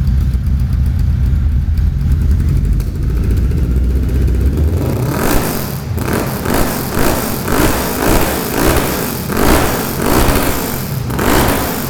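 Car engine with a loud exhaust idling with a low rumble, then from about five seconds in revved in a quick series of blips, several times until near the end.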